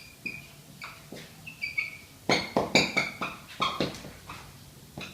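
Crockery and cutlery clinking: a run of sharp clinks with short ringing tones, busiest and loudest in the middle.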